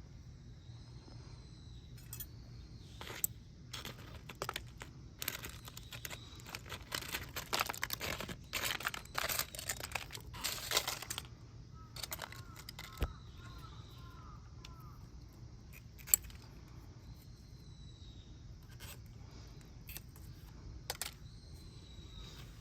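Close rustling, crinkling and small clicks of hands handling objects, densest about five to eleven seconds in, with faint high chirps in the background.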